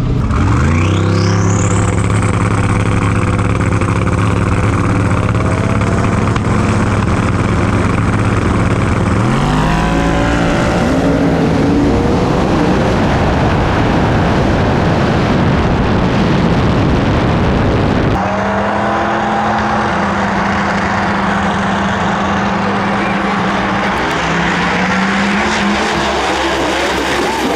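Race car engines running hard at high rpm through a street drag race, with a high whine climbing sharply as they launch. The sound turns noisier about ten seconds in and changes abruptly to a different steady engine tone about eighteen seconds in.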